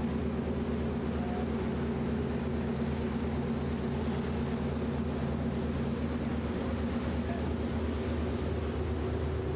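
Diesel-electric fireboat's engines running steadily while underway, a constant low drone.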